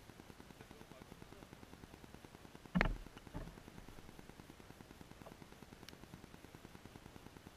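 A sharp knock, followed about half a second later by a softer one, over a faint, rapid, even ticking.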